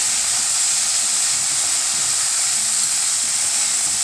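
Okra pieces frying in hot oil in a kadai: a steady, high sizzling hiss.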